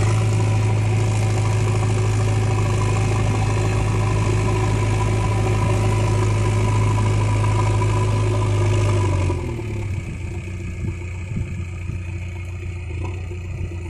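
JCB 3DX backhoe loader's diesel engine running hard with a loud steady hum, then dropping to a lower, rougher run about nine seconds in.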